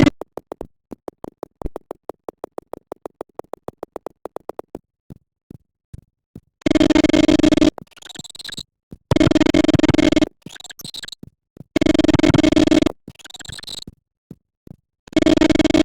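Strange electronic sounds. First comes a run of rapid clicks, about eight a second, for some five seconds. Then a loud buzzing tone sounds four times, about a second each, with quieter warbling, sweeping chirps in the gaps.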